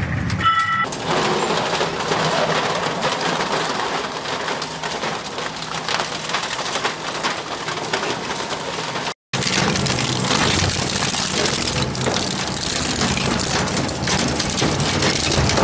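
Twin-shaft shredder cutters crunching and tearing plastic and scrap, a dense run of cracking and snapping. After a short break about nine seconds in, another shredder chews through a tubular frame over a steady motor hum.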